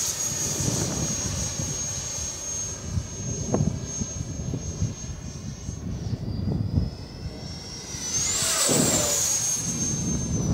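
Electric ducted fan of an FMS F-16 RC jet (70 mm, 12-blade fan) whining steadily in flight. About six seconds in the whine drops in pitch, then near the end it sweeps up and back down with a swell of rushing air as the jet passes close.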